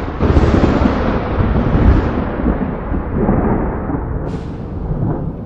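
A long rolling peal of thunder, a deep rumble with crackle that slowly dies away, with a brief hiss near the end.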